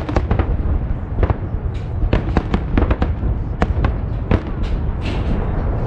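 Fireworks salute shells bursting in quick, irregular succession, many sharp reports over a continuous low rumble.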